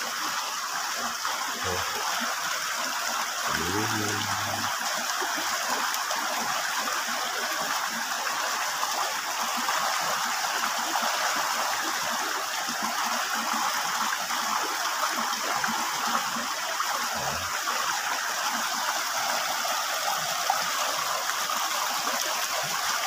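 Rain-swollen muddy river rushing steadily, a constant noise of flowing water. A short low hum comes about four seconds in.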